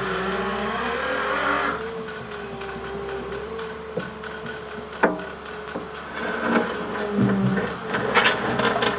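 Construction machinery running with a steady hum, broken by sharp metallic knocks about four and five seconds in and louder clattering bursts near the end.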